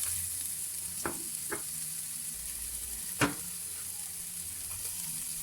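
Minced ginger sizzling in a hot frying pan with the oil left from frying chicken, stirred, as a steady high hiss. A few sharp clicks come through it, the loudest about three seconds in.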